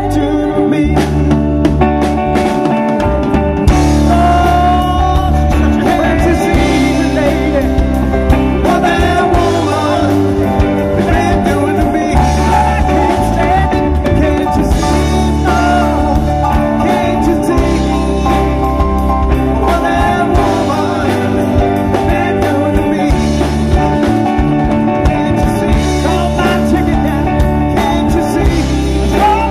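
Live rock band playing: electric guitars and a drum kit over a steady bass line.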